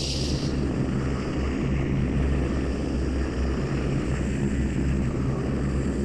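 Steady low rumbling drone of a horror sound effect, with a brief hiss near the start and again near the end.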